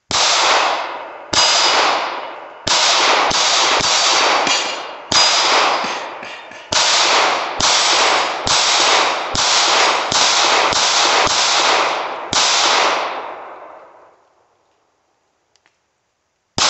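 A string of about sixteen gunshots, roughly one every half second to second, each echoing for a second or more, with a struck metal target ringing after some of the hits. After a pause of about four seconds, one more shot comes at the very end.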